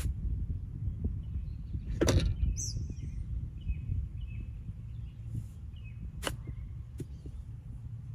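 Golf wedge chip shot: a crisp click of clubface on ball about six seconds in, followed by a fainter tick. Earlier, about two seconds in, a louder brushing thump. Wind rumbles on the microphone throughout, with a few bird chirps.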